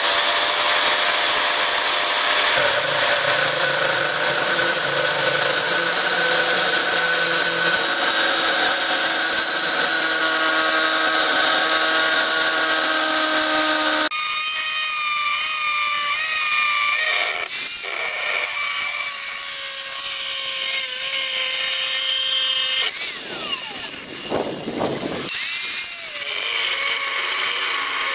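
Electric angle grinder with a thin cut-off disc spinning up, then cutting through a worn-out steel file in a steady high whine. It steps down in level about halfway through and dips in pitch briefly twice in the second half as the disc is worked through the steel.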